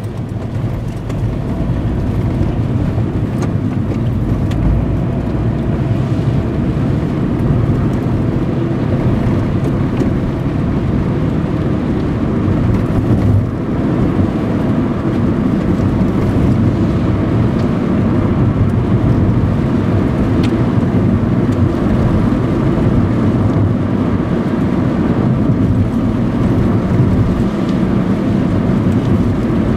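Car being driven, heard from inside the cabin: a steady mix of engine and road noise that builds over the first second or two and then holds.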